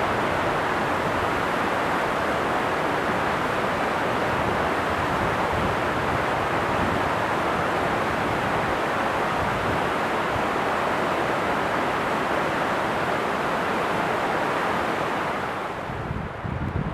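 Fast-flowing water swollen with spring snowmelt, a steady loud rushing. It turns quieter and duller about a second before the end.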